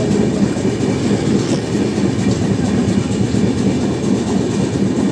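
A train running along the track, heard from the open doorway of a moving coach: loud, steady noise of wheels on rail, with the coach rattling.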